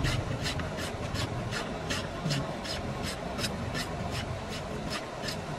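Wooden tool handle being rasped in quick, even strokes, about three or four a second.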